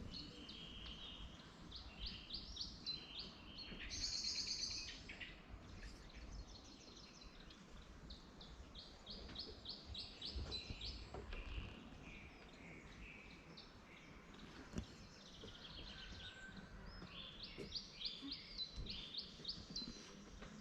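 Songbirds singing, with quick runs of high chirps and trills repeating throughout, loudest about four seconds in.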